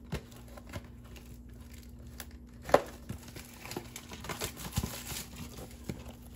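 Plastic wrapping crinkling and rustling as a trading-card blaster box is handled, with scattered light clicks and one sharper snap about three seconds in.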